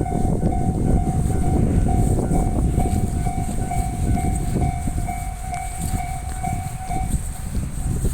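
Local train rumbling across a Japanese level crossing while the crossing's warning bell rings in quick, evenly repeated pulses of one tone. The bell stops about seven seconds in as the rumble of the train carries on.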